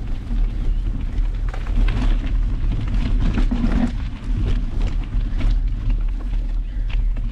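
Mountain biking on a dirt singletrack heard through an action camera's microphone: a steady heavy low rumble of wind and ride vibration, with crackling and rattling from tyres rolling over dirt, stones and dry leaves.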